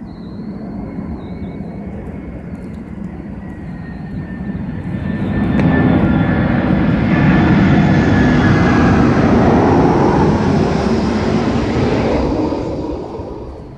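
A loud passing vehicle that swells over several seconds, holds at its peak, then fades away, with a tone that slides down in pitch as it goes.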